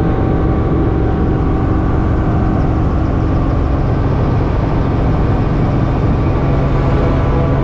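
Steady engine and cabin noise from inside a moving vehicle, with a few steady low hums.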